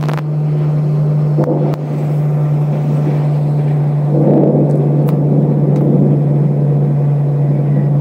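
Thunder rumbling from an approaching storm, swelling about four seconds in, over a steady low hum, with a few sharp clicks.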